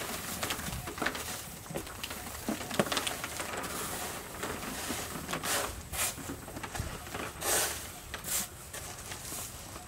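Rice husk packing and quail eggs tipped from a cardboard box into a woven bamboo basket: a continuous dry rustle with small clicks as the eggs knock together, and a few louder pouring swishes near the end.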